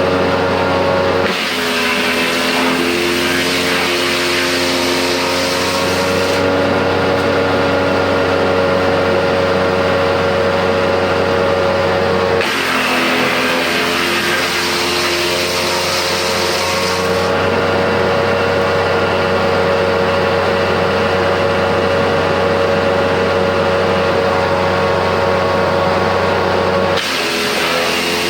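A wood chipper's two-cylinder 24 hp Loncin engine running steadily at speed. Three times, harsh chipping noise breaks in for several seconds as wood goes through the cutting drum, and the engine pitch sags under the load and then recovers.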